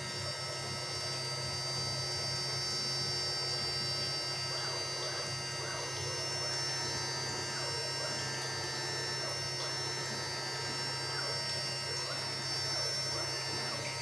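Small CNC router running a carving job: a steady hum and high whine from its 800 W spindle, with short rising and falling tones from the stepper motors as the axes move.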